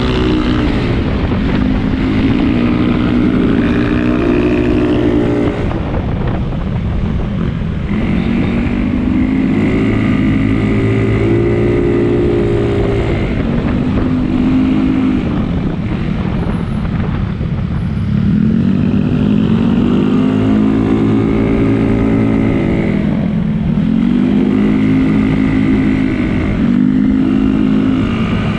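Yamaha Mio 160cc scooter engine under way, revving up and easing off again and again as it is ridden hard.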